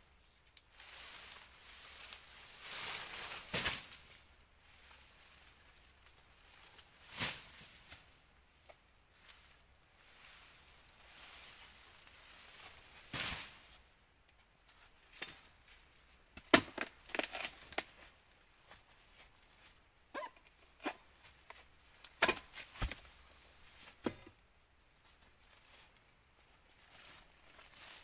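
Oil palm fronds being chopped with a blade: sharp, irregular chops and knocks a few seconds apart, bunched closer together in the second half. A steady high-pitched insect drone runs underneath.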